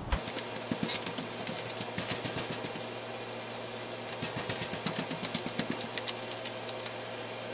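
Two-part filler being mixed with hardener on a wooden stick by hand: a run of small clicks, ticks and scrapes, over a steady low hum.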